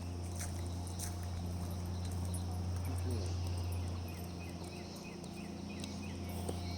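Insects chirping in short, high, repeated notes over a steady low hum, with a few faint taps like footsteps.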